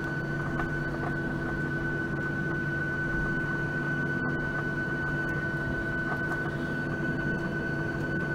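Airliner engines running while taxiing, heard from inside the passenger cabin: a steady hum with an even, high-pitched whine over it.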